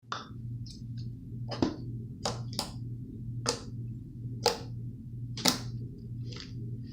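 Slime being pressed and worked by hand, making sharp clicking pops about once a second over a low pulsing hum.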